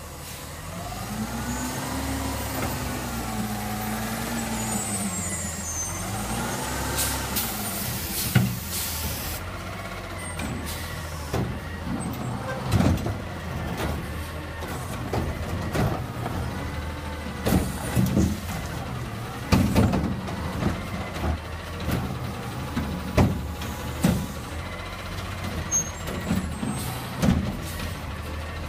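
Front-loading garbage truck with a Curotto-Can automated arm: the diesel engine's pitch rises and falls several times as the truck pulls up. An air-brake hiss comes about eight seconds in, then repeated clanks and bangs as the arm and can work.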